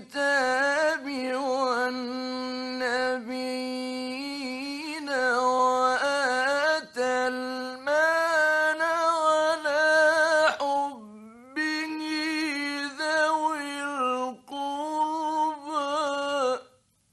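Male Quran reciter chanting in the melodic mujawwad style on an early-1960s radio recording, holding long, ornamented notes in a high register. He pauses briefly about two-thirds of the way through, then stops shortly before the end.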